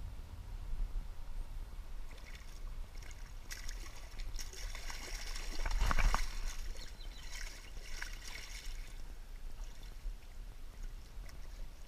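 Water splashing as an arrow-shot common carp thrashes at the surface on the bowfishing line, the splashing heaviest about six seconds in, over a steady low rumble.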